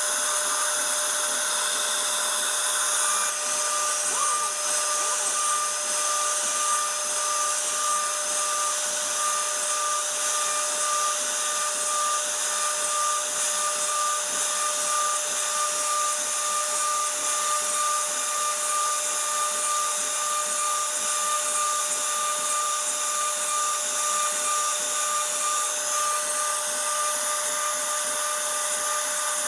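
CNC router spindle running steadily while carving a 2.5D furniture design, a constant high whine over the hiss of the cutting.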